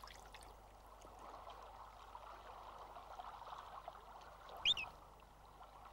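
Soft water dabbling and lapping as a paradise shelduck and her duckling feed at the surface of a lake, with one brief, high peep from a duckling about three-quarters of the way through.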